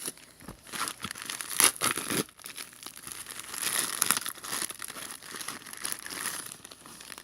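Packaging crinkling and tearing as a diamond painting kit's package is opened by hand, with a sharper crackle about a second and a half in.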